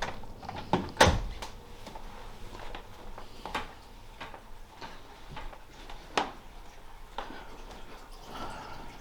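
Scattered knocks and clicks of a person moving about a room and handling things, the loudest a sharp knock about a second in.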